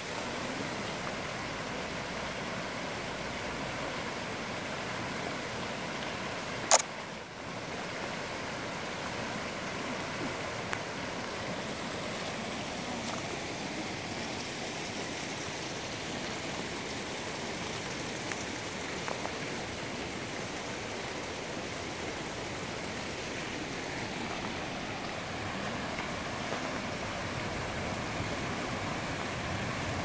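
Shallow stream rushing over rocks in a steady hiss of flowing water. One sharp click cuts through it about a quarter of the way in.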